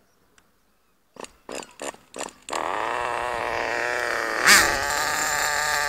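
Small nitro engine of an Acme Cyclone Pro remote-control car being started: four short sputtering bursts as it is cranked, then it catches about two and a half seconds in and runs with a steady, high buzz. One quick throttle blip comes near the end.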